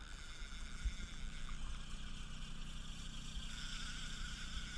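Boat's outboard motor running at low speed, a steady low hum under wind and water noise.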